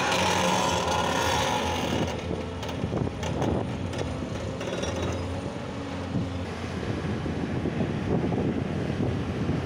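Diesel engines of heavy construction machinery (excavators and a dump truck) running steadily with a low hum, with some brief clattering and wind noise on the microphone.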